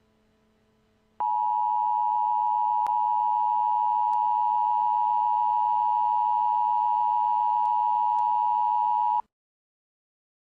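Emergency Alert System attention signal: a steady two-tone electronic alert tone that starts about a second in, holds for about eight seconds and cuts off suddenly.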